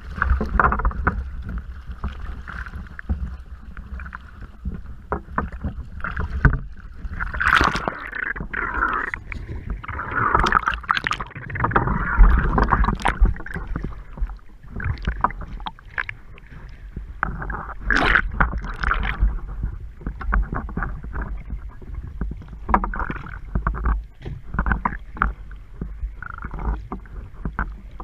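Water sloshing and bubbling against a scuba diver's camera housing as it goes under the surface, with a steady low rumble and crackling. Louder surges of bubbling come every few seconds, in the rhythm of a diver's exhaled regulator bubbles.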